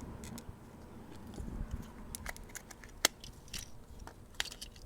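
Small clicks and plastic crackles from a smashed smoke detector being handled, with one sharp click about three seconds in and another near the end.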